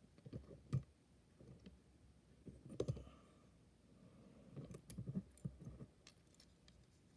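Small clicks and taps of a diecast funny car model being handled, its hinged body being lifted open. Two sharper clicks, about a second in and near three seconds, then a cluster of light taps around five seconds.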